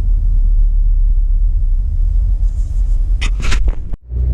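Steady low road and engine rumble of a car driving on a highway, heard from inside the cabin. A few short, sharp noises come about three seconds in, and the sound drops out briefly near the end.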